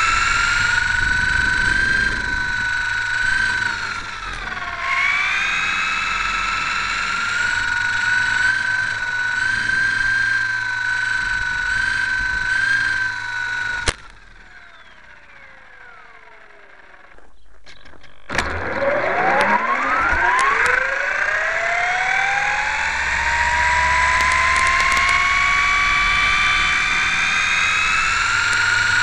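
Model airplane's motor and propeller, heard up close, running at a steady high whine with a brief dip in pitch about four seconds in. About fourteen seconds in it cuts off abruptly and winds down. About four seconds later it starts again and climbs steadily in pitch back to full speed, as it would with the throttle opened on the ground.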